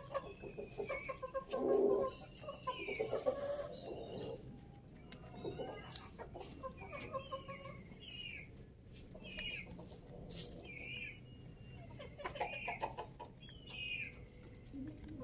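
Domestic hens clucking and giving short, high calls while feeding, with a louder cluck about two seconds in. Scattered sharp taps run through it as their beaks peck at the concrete.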